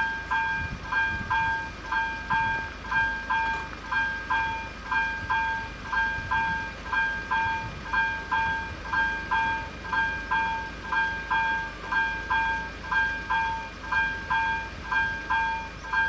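Level crossing's electronic warning bell ringing, a two-pitched chime repeating evenly about twice a second: the crossing is closed for an approaching train. A low steady rumble of idling cars lies underneath.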